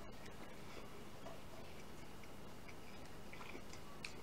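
Faint, irregular clicks of wooden chopsticks tapping a ceramic sauce cup and plate while eating, the sharpest near the end, over a low steady hum.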